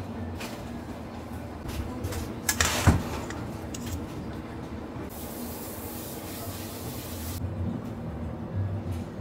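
Kitchen handling sounds: metal tongs working in a stainless-steel bowl, with one sharp clatter about three seconds in, over a steady low hum. A short stretch of hiss follows just after the middle.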